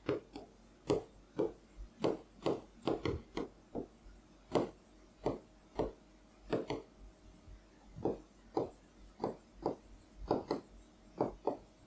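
Stylus tapping and scraping on an interactive display board while writing: a string of short, irregular clicks, about two or three a second.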